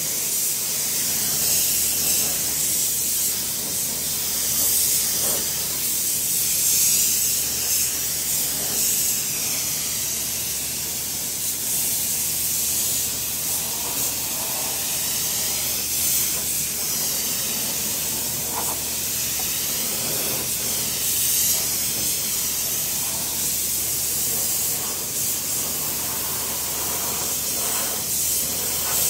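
Gravity-feed paint spray gun hissing steadily with compressed air as it sprays clear coat onto a painted plastic bumper. The hiss swells and eases a little as the gun is triggered and swept.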